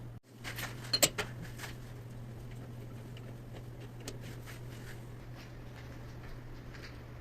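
Light metallic clicks and clinks, loudest in a quick cluster about a second in, with scattered lighter ticks after, over a steady low hum.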